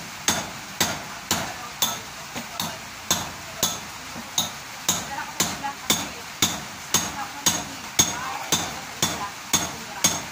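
Hammer striking a steel chisel, cutting through a hollow concrete-block wall: steady blows about two a second, each with a short metallic ring.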